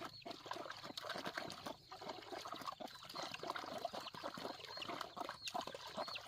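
Poultry chirping and peeping in short high calls, over a jumble of small knocks and rustles.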